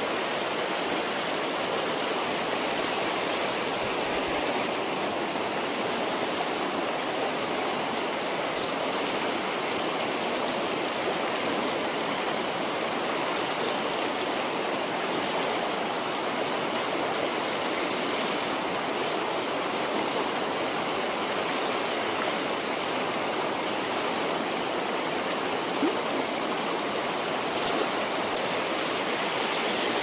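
Shallow rocky river rushing over boulders through riffles: a steady rush of water.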